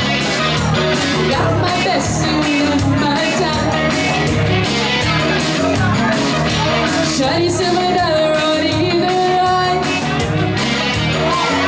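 Karaoke: a backing track with a steady beat playing over the PA, with a voice singing over it.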